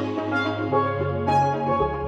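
Instrumental background music with held notes over a moving bass line and light percussion.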